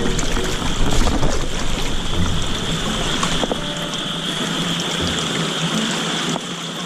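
Water sloshing and splashing as someone in waders moves through a shallow ditch and sweeps a dip net through the water, with dull low thuds of feet and net moving in the water every second or two. A steady high-pitched chorus sounds underneath.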